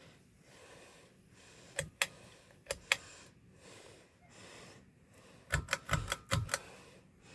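Sharp clicks from a Hampton Bay Sinclair ceiling fan's pull-chain switch: two pairs, then a quick run of about six, over the fan's steady running air noise, which swells and dips about once a second.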